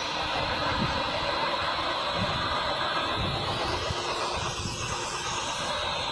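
Light helicopter running on the ground with its main rotor turning: a loud, steady, dense rush and hiss of engine and rotor noise.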